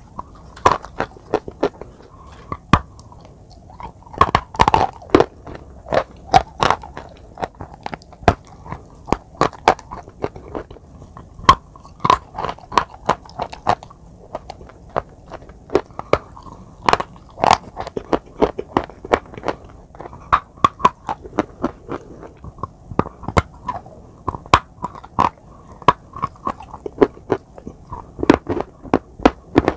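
Close-up biting and chewing of a hard white chalk bar, crunching in sharp, irregular cracks, sometimes several a second, with wet mouth sounds between them.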